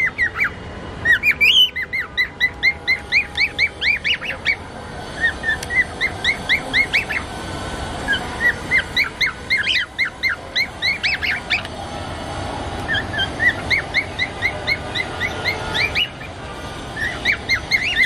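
Cockatiels chirping: runs of short, quick upward chirps, several a second, in bouts of two to four seconds with brief pauses between.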